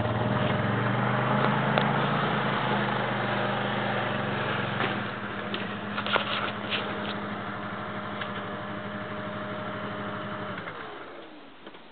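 Honda ATV engine running steadily at idle, with a few sharp knocks about six seconds in. Near the end the engine cuts off and its pitch falls away as it stops.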